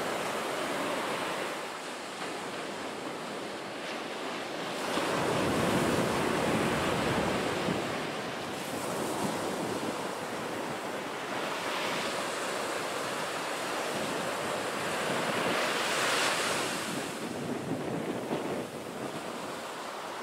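Ocean surf breaking and washing up the beach as a steady rushing wash. It swells louder twice, about five seconds in and again around sixteen seconds.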